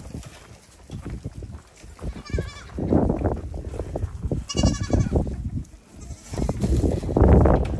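Goats bleating: two short, trembling calls, about two seconds in and about four and a half seconds in. A low rumbling noise runs under them and is loudest near the end.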